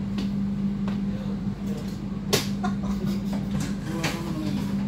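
Inside a moving passenger train carriage: a steady low hum with scattered knocks and clatters from the carriage, the loudest a sharp knock about two seconds in. Faint voices underneath.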